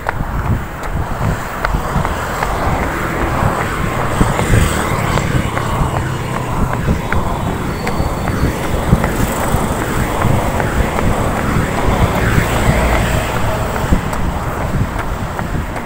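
Wind rumbling on the microphone of a phone carried by a runner, with road traffic passing.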